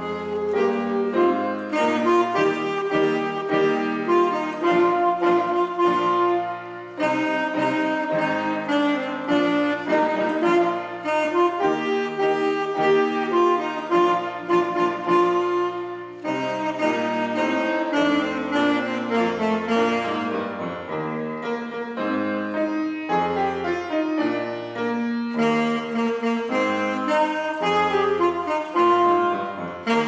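Alto saxophone playing a melody in phrases over grand piano accompaniment, with brief breaks between phrases.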